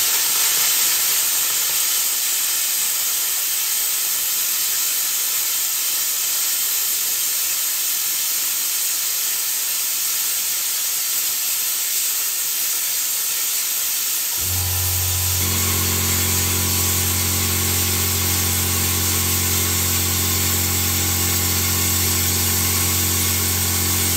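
Plasma cutter cutting 3 mm aluminium at 30 amps on 5 bar of air: a steady, loud hiss of compressed air and arc through the torch. About fourteen seconds in, a steady low hum with several held tones joins and carries on under the hiss.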